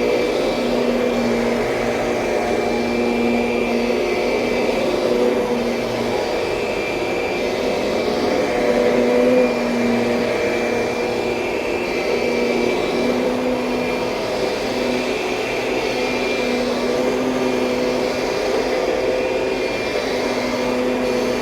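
Kirby Sentria upright vacuum cleaner running continuously, a steady motor hum and rush of air whose pitch wavers slightly now and then.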